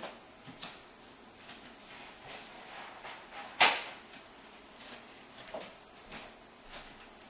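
Scattered faint clicks, about one or two a second, with one sharp knock about three and a half seconds in.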